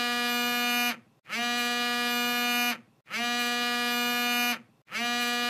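A telephone ringing: a buzzy electronic tone at one steady pitch, repeating in rings about a second and a half long with short gaps between them.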